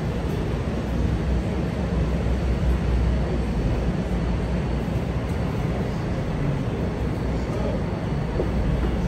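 CTA 5000-series 'L' train standing at the platform with its doors open, giving a steady low rumble and hum with a faint high whine over it.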